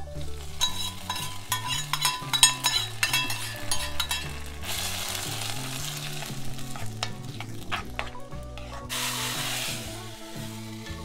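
A spoon clinking and scraping against a steel pot of thick nettle greens curry, then a sizzle as hot tempering oil with fenugreek seeds and jimbu hits the curry. The sizzle grows louder near the end as the last of the oil is tipped in from the iron pan.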